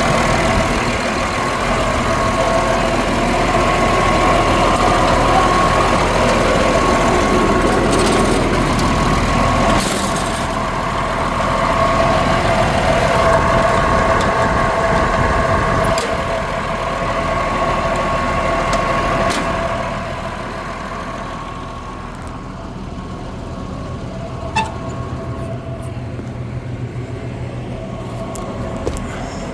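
John Deere 350D LC excavator's 9.0 L six-cylinder turbo diesel running, with a steady whine over it. About twenty seconds in the sound drops to a lower level, and a few sharp clicks come through.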